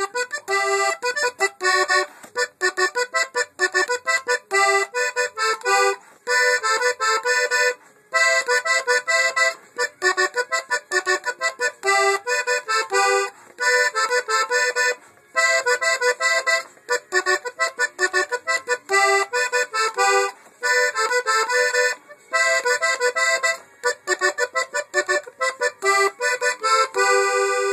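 Hohner Corona II three-row diatonic button accordion played solo: a quick tune of short, detached notes and chords, in phrases broken by brief pauses every couple of seconds.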